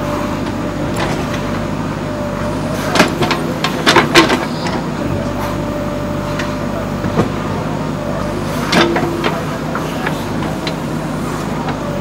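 JCB 3DX backhoe loader's diesel engine running steadily as the machine works, with a cluster of loud metal clanks and knocks about three to four seconds in and another near nine seconds.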